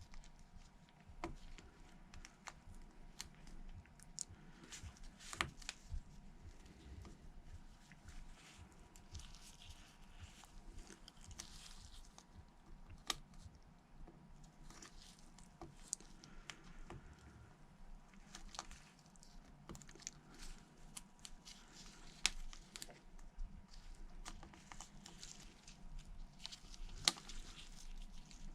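Faint, scattered small clicks, taps and rustles of hand work on an opened smartphone: small tools and parts being handled and pressed into place.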